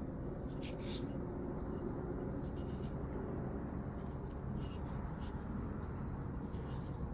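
Crickets chirping in short, evenly repeated pulses over a low steady background rumble, with a few brief higher rustles.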